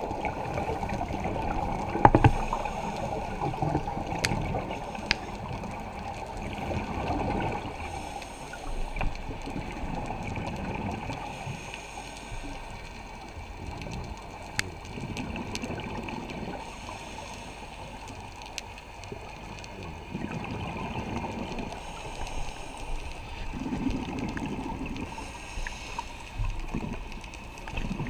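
Scuba regulator breathing underwater, heard through a camera housing: muffled bubbling and rushing of exhaled air that swells every few seconds, with a sharp knock about two seconds in.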